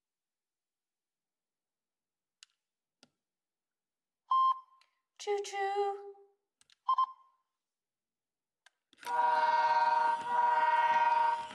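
Sound effects from the speaker of a BRIO smart Bluetooth toy locomotive, set off by pressing the button on its roof: two faint clicks, a short beep, a voice saying "choo-choo", another beep, then a long steady horn tone in two parts.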